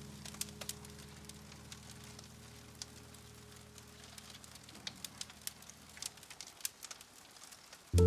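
Fire crackling, with scattered sharp pops over a soft hiss. The quiet tail of a music track fades out beneath it over the first six seconds or so.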